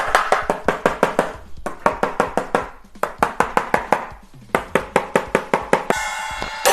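Drumsticks playing quick runs of strokes on the rubber mute pads of an EPIC practice drum kit, about seven or eight hits a second, with a couple of short pauses. Near the end a small toy-like cymbal is struck and rings for about a second.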